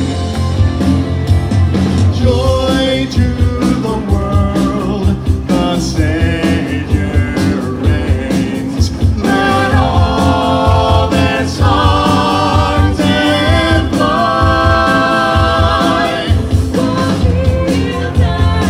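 Rock-style music with singing over a steady driving beat.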